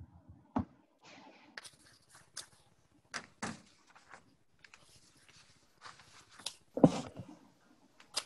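Scattered clicks, knocks and rustles of desk and handling noise, irregular rather than rhythmic, with one louder knock about seven seconds in.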